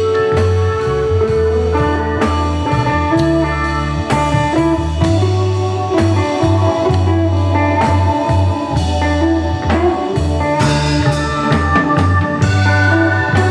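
Instrumental psychedelic jazz-rock band playing: drum kit keeping a steady beat under a bass guitar line, electric guitar and held keyboard notes.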